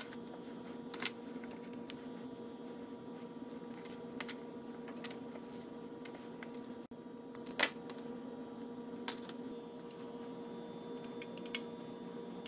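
Scattered light clicks and taps of hands handling a rubber fuel line and small fittings on an outboard motor, over a steady electrical hum.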